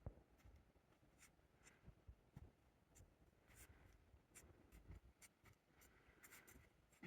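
Near silence with faint scattered ticks and a light scratchy rustling, one slightly louder tick at the very start and another at the end.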